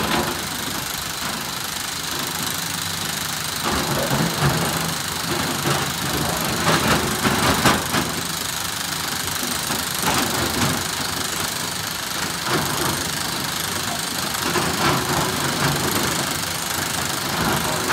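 SANY SY365H Pro excavator's diesel engine running steadily, with several louder clattering surges where the machine works loading andesite stone.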